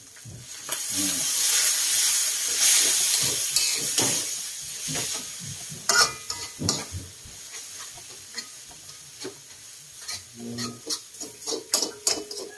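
Water poured into a hot wok of frying instant noodles and egg, setting off a loud sizzle that swells over the first couple of seconds and dies away over the next several. A metal utensil scrapes and clinks against the wok as the noodles are stirred.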